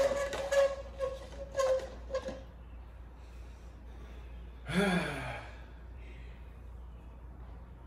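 Plastic party cups slid and shuffled across a glass tabletop, squeaking in a handful of short strokes over the first two seconds or so. About five seconds in, a person lets out a short sigh that falls in pitch.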